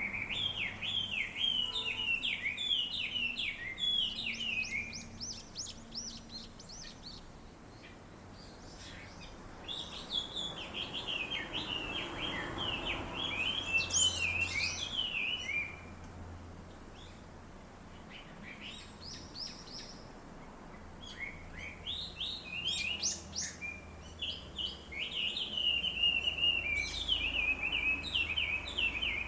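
Small birds gathered in a tree, chirping and twittering in bouts of rapid high notes, with short lulls between the bouts.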